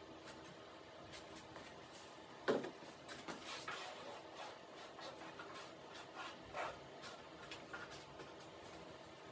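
Gloved hands and a spreader working epoxy-wetted fiberglass cloth over a wing leading edge: short, irregular rubbing and scraping strokes, faint, with one louder brief squeak about two and a half seconds in.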